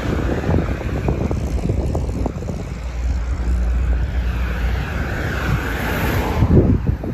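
Road traffic on a wide road: a white van drives past close by, its engine and tyre noise swelling to a peak about six seconds in and then falling away quickly. Wind buffets the microphone throughout.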